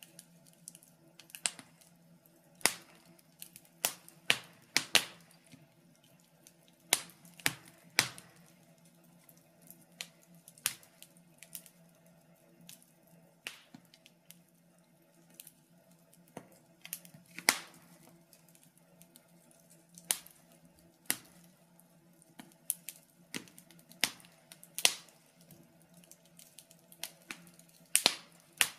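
Wood fire in a fireplace crackling: irregular sharp pops and snaps, roughly one a second and sometimes in quick clusters, over a faint steady low hum.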